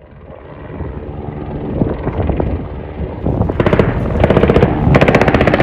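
Helicopter rotor and engine drone building, with two bursts of rapid automatic machine-gun fire from the door gun, each about a second long: the first a little past halfway, the second near the end.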